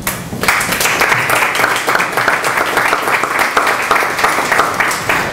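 Small seated audience applauding, a dense patter of many hands clapping that starts about half a second in and keeps up evenly until it stops near the end.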